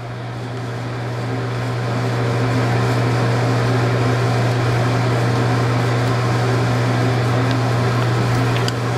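Steady machine hum with a hiss over it, growing louder over the first two or three seconds and then holding level.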